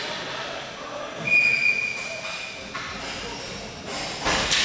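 Referee's whistle blown once in a steady blast of about a second and a half, over the murmur of voices in an arena hall. A sharp knock near the end.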